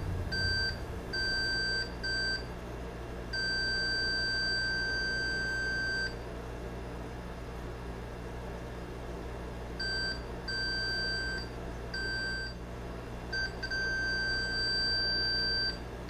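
Fluke 27/FM multimeter's continuity beeper sounding in a series of steady high beeps of uneven length, most short, one lasting about three seconds, with a pause of several seconds in the middle. Each beep marks a closed circuit as the probes touch the contacts of the repaired radio band-change switch.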